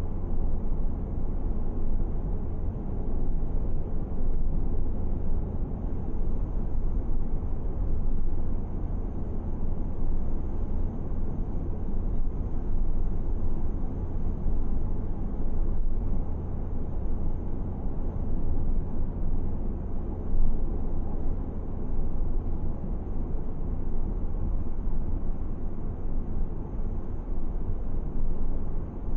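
Steady low rumble of road and engine noise from a car driving along a paved road, with a brief bump about twenty seconds in.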